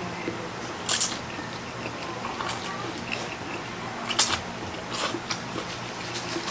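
Two people slurping and chewing Samyang spicy instant noodles, with sharp slurps about a second in and again around four and five seconds in, and quieter chewing between them.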